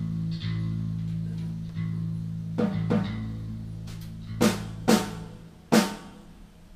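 Ludwig drum kit struck with about five separate, unevenly spaced hits, each ringing out, over a steady low hum that stops about five seconds in.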